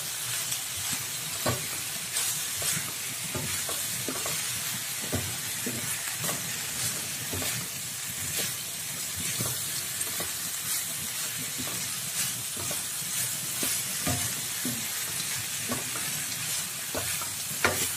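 Spatula stirring fried tempeh and peanuts in a wok, scraping and knocking against the pan at irregular intervals over a steady sizzle.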